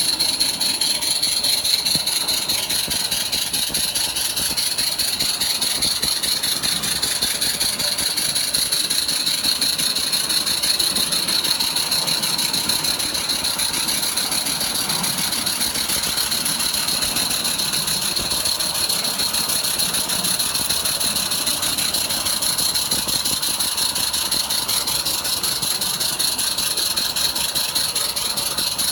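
Accucraft Ragleth model locomotive running steadily, heard from a wagon just behind it: a continuous hiss over a fast, even run of beats.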